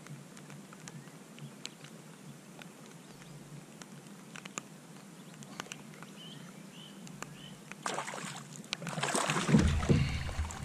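A hooked bass being played to the side of a kayak. It is quiet at first with faint scattered clicks, then from about eight seconds in come louder splashing and thrashing at the water's surface as the fish is brought alongside, growing louder toward the end.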